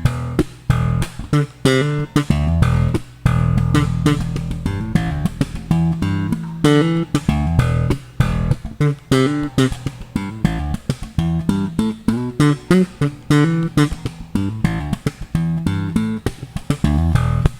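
Squier electric bass with Malagoli pickups played slap style with the tone knob fully open: thumbed low notes and popped strings in a quick, continuous rhythm.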